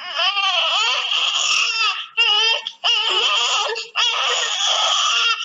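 A person imitating a newborn baby's desperate crying: about four long, wavering wails with brief breaks for breath, heard over a video call.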